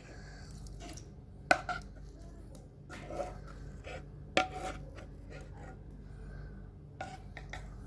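Kitchen vessels and utensils knocking and clinking, a handful of separate knocks a second or more apart, as the cooled ice-cream custard is transferred into a mixer grinder jar.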